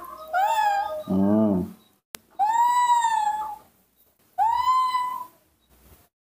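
Baby monkey giving high-pitched screaming calls, impatient for milk: about four calls, the longer ones lasting about a second each, with a lower wavering call about a second in. A single sharp click comes just after two seconds.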